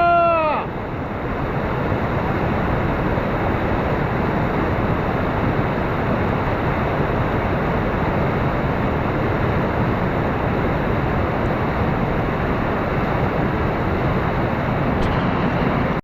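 Rushing whitewater of a river in high spring flood, a steady loud roar of water with wind buffeting the microphone. A short arching shout sounds right at the start.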